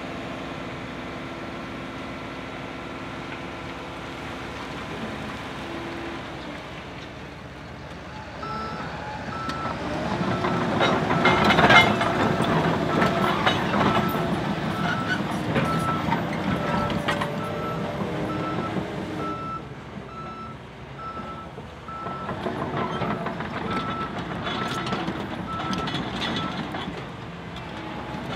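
Diesel heavy earthmoving machinery working. An engine runs steadily at first; after about eight seconds louder machine noise with knocks and clanks sets in, and a reversing alarm beeps about once a second for most of the rest.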